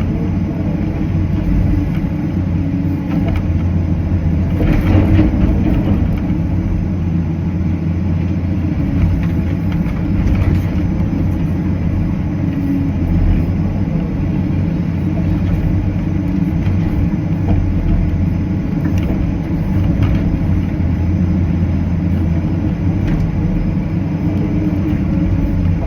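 Cat 325CL excavator's diesel engine running steadily under working load, with a few short knocks.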